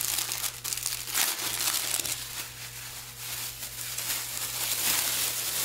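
Thin, lightweight plastic emergency poncho crinkling as it is pulled from its packet and unfolded by hand, an uneven run of crackles throughout.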